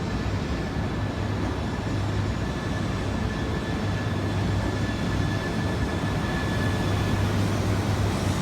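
Genbi Shinkansen, an E3-series bullet train, pulling into a station platform: a steady low rumble with a faint high whine that fades out about seven seconds in, growing slightly louder.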